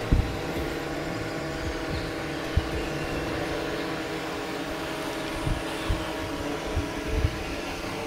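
Small quadcopter drone's motors and propellers whirring steadily, a hum of several held tones, with a few short low thumps.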